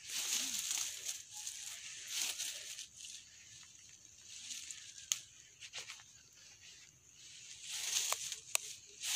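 Leaves and dry vegetation rustling in irregular bursts, with a few sharp snaps or cracks. The loudest rustling comes at the start and near the end.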